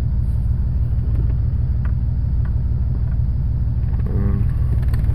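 1996 Jeep Grand Cherokee's 4.0-litre straight-six idling roughly in neutral, a steady low rumble. The owner reports misfires on all cylinders and a very rich mixture.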